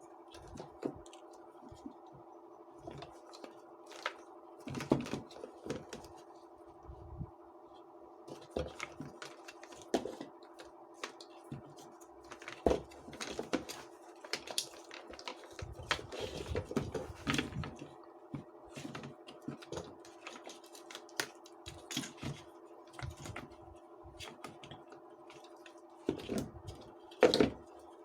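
Irregular clicks, taps and knocks of small parts and tools being handled during work on a ceiling fan, over a steady faint hum.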